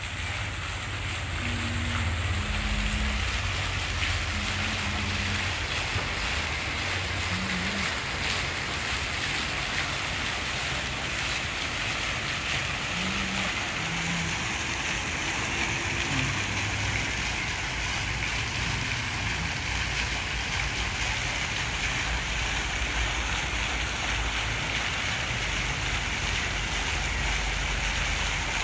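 Garden fountain: a vertical water jet splashing steadily down into a stone pool, a continuous even rush of falling water with a low rumble underneath.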